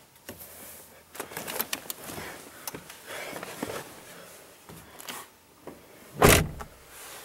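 Handling noises on a pickup truck's plastic interior trim: scattered clicks and knocks of a hand and a handheld camera against the door panel, with one loud thump about six seconds in.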